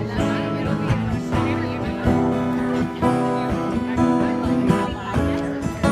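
Live band playing an instrumental passage between sung verses, led by guitar.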